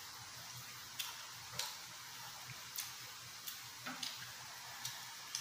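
Eating by hand: a handful of short, scattered clicks and soft smacks from chewing and from fingers picking rice and steak off the plates.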